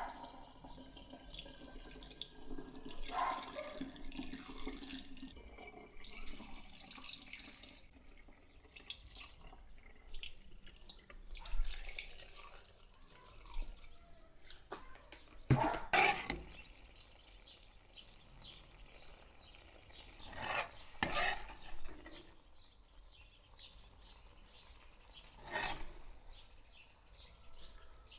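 Water being poured and splashed, with a few brief clatters.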